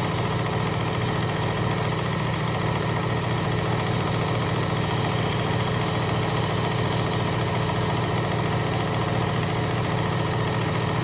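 Work Sharp Ken Onion belt sharpener's motor running steadily, with the hiss of a knife edge grinding on the abrasive belt just at the start and again from about five to eight seconds in. The passes raise a burr on the edge.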